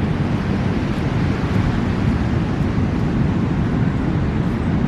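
Steady beach noise of surf and wind blowing on the microphone, an even low rumble with no breaks.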